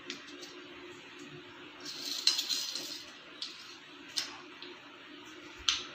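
Light clinks and taps of steel kitchenware: a spoon and small steel bowl knocking against a steel saucepan of milk. A short cluster of clinks comes about two seconds in, with single taps before and after.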